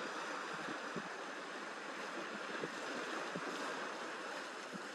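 Steady outdoor rush of sea surf and wind, with short low buffets of wind on the microphone.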